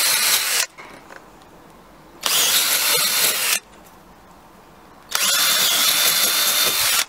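Cordless drill running in three bursts of one to two seconds each, with a high motor whine, drilling through the rivet holes of a soft-top hood's B-pillar strip into the metal frame.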